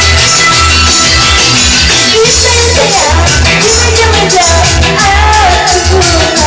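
Loud music with a heavy, pulsing bass beat; a wavering melody line comes in about two seconds in.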